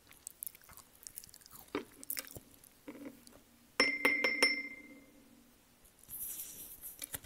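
Small ceramic bowl set down on the table with a few quick clinks, its ring hanging briefly before dying away. Near the end, fingers rustle against a headset microphone by the mouth.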